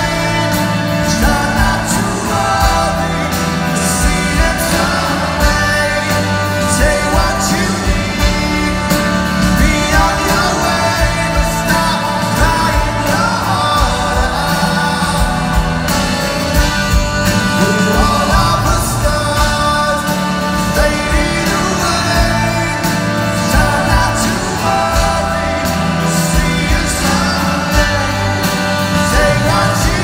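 Live rock band: a man singing lead over guitar, drums and keyboards, heard from the crowd in a large hall.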